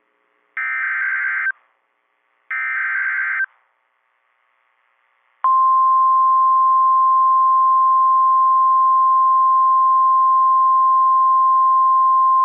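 Two roughly one-second bursts of a SAME digital alert header, a harsh warbling data screech, followed after about two seconds of silence by the steady single-pitch 1050 Hz NOAA Weather Radio warning alarm tone, which starts about five and a half seconds in and holds. Together they are the header and attention signal that open a new weather warning broadcast.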